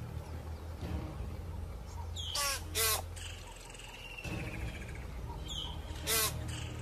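Eagle screeches, harsh and raspy: two in quick succession about two and a half seconds in and a third about six seconds in, with a thinner falling whistle between them.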